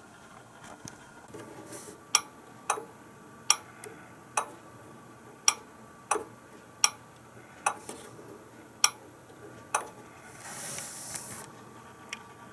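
Plastic temperature dial of an electric contact grill clicking as it is turned by hand, about ten sharp clicks at irregular intervals of under a second. A short rustle follows near the end.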